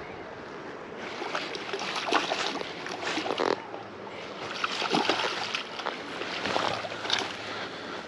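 Spinning reel being cranked to reel in a hooked smallmouth bass, with water splashing at the surface as the fish is brought in; a few sharp splashes stand out.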